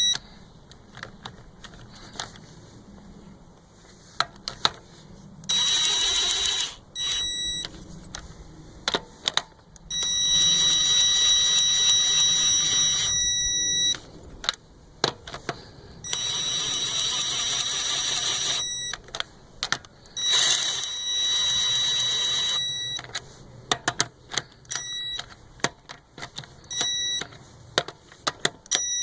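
Craftsman C3 19.2-volt half-inch cordless impact wrench running lug nuts down onto a wheel in four bursts, one to four seconds each, its motor giving a high whine. Short metallic clicks and clinks of the nuts and socket come between the bursts.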